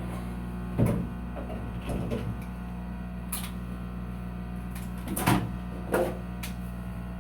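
Scattered clicks and knocks as an old bathroom exhaust fan's motor is worked loose and pulled out of its housing, over a steady low electrical hum.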